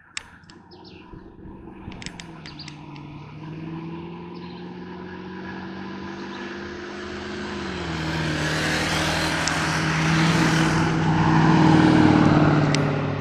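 A race car's engine approaching on a hill-climb course, growing steadily louder and peaking near the end. Its note steps down in pitch once about halfway through.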